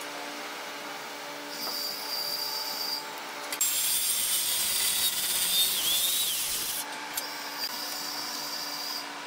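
Makita circular saw running with a high whine, then cutting through a thick hardwood slab for about three seconds in the middle with a louder, harsher sound. After the cut it runs free again. A faint steady hum lies under it all.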